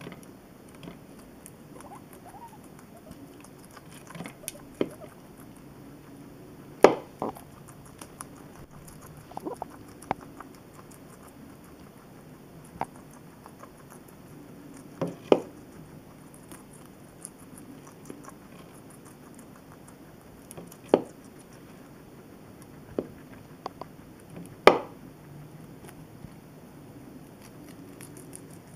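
Two guinea pigs chewing and nibbling vegetables from a plate: a run of soft, rapid crunching and ticking, broken every few seconds by a sharp, loud click or crunch.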